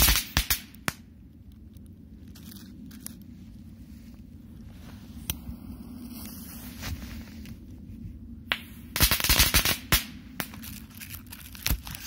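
Small thrown crackling-ball firecrackers going off in sharp snapping cracks: a cluster right at the start, a single crack about five seconds in, and a quick rattle of many cracks around nine to ten seconds in, with a few stragglers after.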